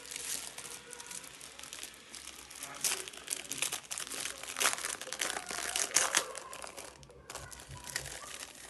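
Packaging crinkling and rustling as it is handled during unboxing, a dense run of crackles with the loudest ones in the middle.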